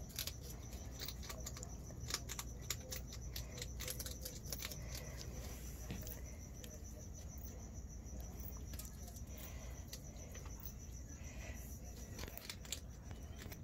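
Striped skunks eating from food bowls: faint, irregular clicks of chewing, busiest for the first few seconds and again near the end. A cricket trills steadily in the background.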